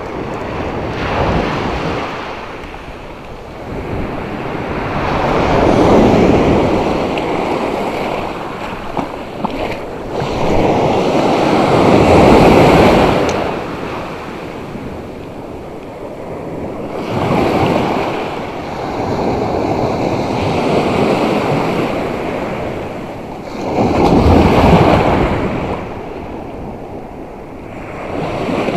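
Sea surf breaking on a sandy shore: a rushing wash that swells and fades every few seconds as each wave comes in.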